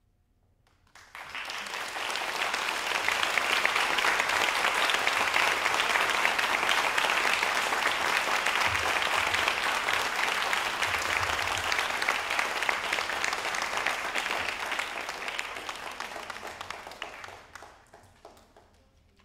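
Concert audience applauding: it breaks out about a second in, holds steady, and dies away near the end.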